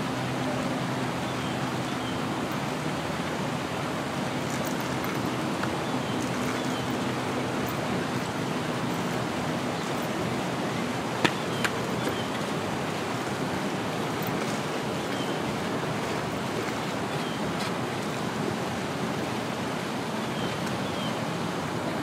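Steady rushing noise, even and unbroken, with a faint low hum that fades out about halfway through. Two sharp clicks come close together near the middle.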